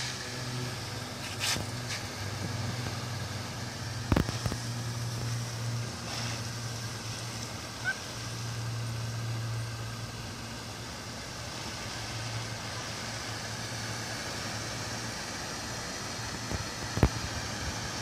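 Water spraying from a garden hose nozzle: a steady hiss, over a low motor-like hum that fades in and out. Two sharp knocks, about four seconds in and near the end.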